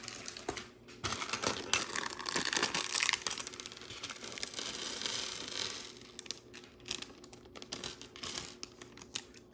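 A plastic bag of Lego pieces being torn open and crinkled, a dense crackling for several seconds, followed by scattered light clicks of loose plastic pieces.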